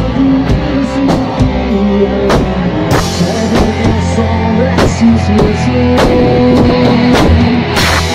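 Rock band playing loud in rehearsal: drum kit hits and electric bass with sustained notes, in a small room. There is a cymbal crash near the end.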